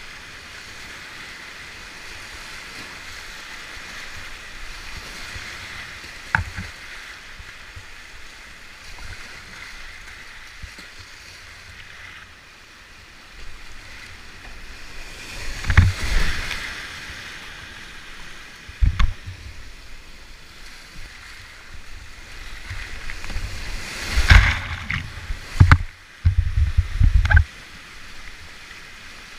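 Whitewater rapids rushing steadily, heard from a kayak running them, with several sudden splashes and thuds of water and paddle against the boat and camera, the loudest about halfway through and a cluster near the end.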